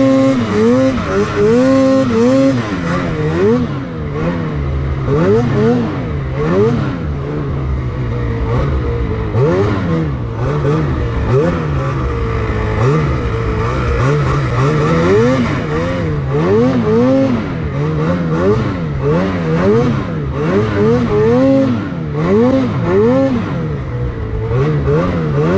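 Lynx Boondocker snowmobile's 850 E-TEC two-stroke engine, revving up and down again and again, every second or so, as the rider works the throttle through deep powder.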